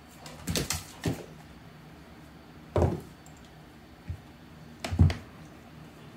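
A handful of short, separate knocks and thumps on a hard floor, spaced a second or two apart, with two close together about half a second in and another pair near the end.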